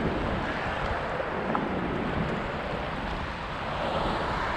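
Surf washing steadily, with wind rumbling on the microphone.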